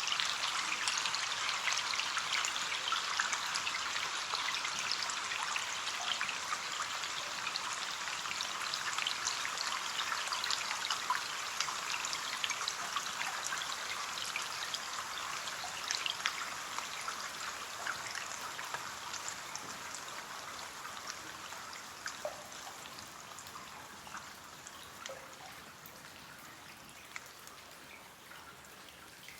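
Rain falling against a window pane: a steady hiss dotted with many small separate drop ticks, slowly fading over the second half.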